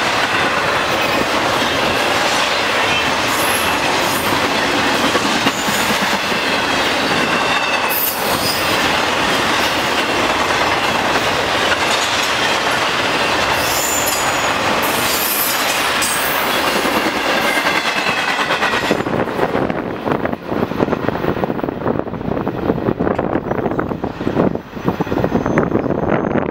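Intermodal freight cars passing at speed, steel wheels running on the rails with a high, wavering wheel squeal coming and going. About three-quarters of the way through the end of the train goes by, and the sound drops to a rough rushing noise of wind on the microphone.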